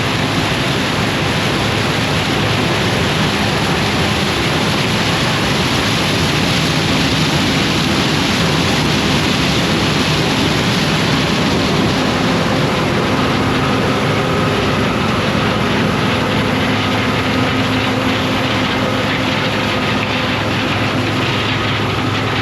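A John Deere combine running while harvesting corn: a loud, steady drone of engine and threshing machinery with a low hum, and a higher whine joins about halfway.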